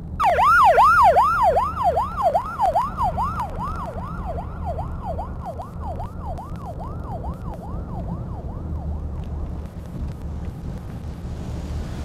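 Emergency vehicle siren in a fast wail, rising and falling about three times a second; it starts suddenly and fades away over several seconds. Underneath, a steady rumble of road traffic.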